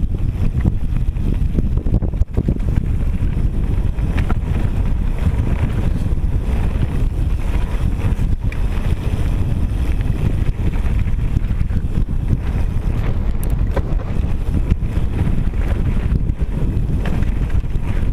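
Wind buffeting an action camera's microphone on a fast mountain-bike descent, a steady low rumble. Under it is the noise of knobbly tyres rolling over a loose gravel trail, with a few brief knocks and rattles from the bike, the loudest about two seconds in and about four seconds in.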